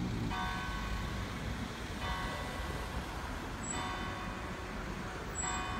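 Church clock bell striking the hour at midday: four slow strokes about 1.7 seconds apart, each ringing on, over steady traffic noise.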